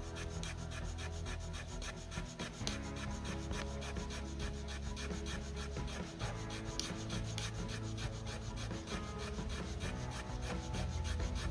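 Fire plough made of pigeon wood (Trema orientalis): a hardwood stick is rubbed fast back and forth along a groove in the board, a quick, even rasping of wood on wood. This is the friction stroke that grinds out hot dust to build an ember.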